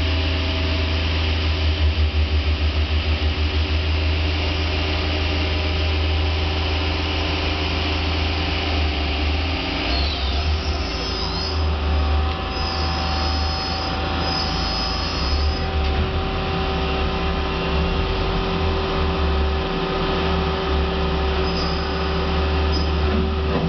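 Hardinge Quest 10/65SP CNC turning center running under power through a program: a steady machine hum with a strong low drone and several steady tones. The hum pulses for a couple of seconds near the start, shifts about ten seconds in, and faint high squeaks come and go for a few seconds after that.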